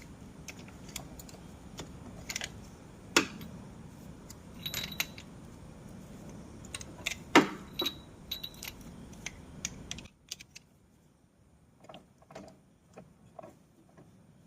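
Metal spark-plug spanner clinking and clicking on a motorcycle engine as a spark plug is tightened: a series of sharp metallic clicks with two louder knocks. A low steady hum underneath stops about ten seconds in.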